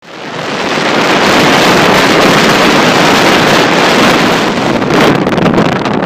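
Strong sea wind blowing across the microphone: a loud, steady rush that fades in at the start and turns gustier from about five seconds in.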